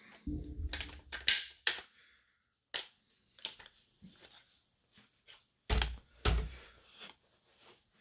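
Gear being handled: a few sharp clicks and light knocks, then two dull thumps close together about six seconds in.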